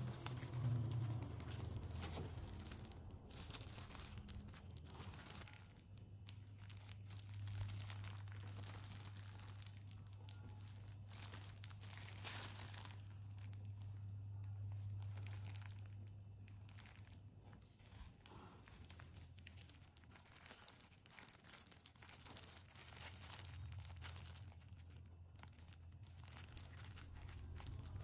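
Close-up irregular crinkling and tearing noises, like paper or soft food being handled, over a low steady hum that is strongest in the middle stretch.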